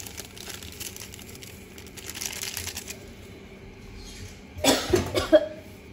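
Thin plastic seasoning sachet crinkling faintly as powdered stock is shaken out of it into a wok of stew. Near the end a short, louder vocal sound cuts in.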